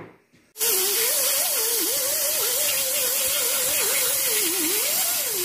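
Air die grinder with a small abrasive disc grinding on birch bark glued to plywood, starting suddenly about half a second in: a loud air hiss with a motor whine whose pitch wavers up and down as the disc is pressed into the bark.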